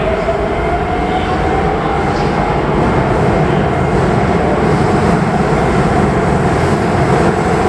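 Electric commuter train running through the station, its wheels rumbling on the rails. A motor whine rises gently in pitch over the first few seconds and then holds steady, as the train gathers speed.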